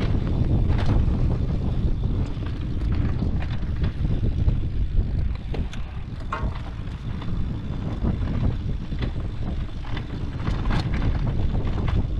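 Wind buffeting the microphone during a mountain bike ride down a dirt trail, a steady low rumble, with scattered clicks and knocks from the bike over bumps.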